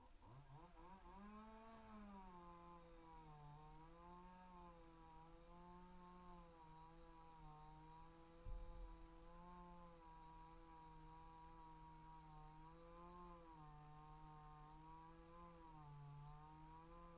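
Chainsaw engine revving up just after the start, then running at high speed with a wavering pitch. A single low thump comes about eight and a half seconds in.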